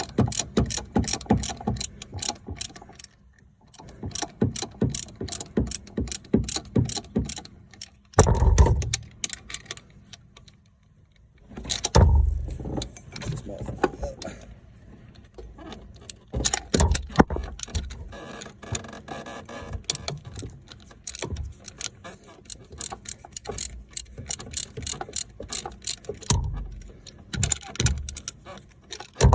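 Hand socket ratchet clicking in quick runs, with short pauses, as the A/C compressor's mounting bolts are snugged down. A couple of heavier knocks come partway through.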